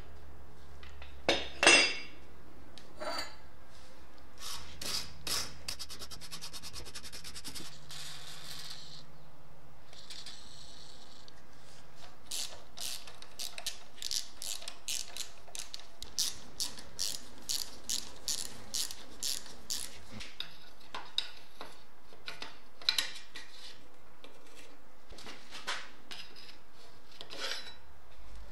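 Hand tools on a rusty steel bicycle frame during disassembly. There are a couple of sharp metal knocks near the start and some brief scraping. Then come long runs of evenly spaced clicks, about two or three a second, from a ratcheting hex-bit driver unscrewing the brake caliper pivot bolts.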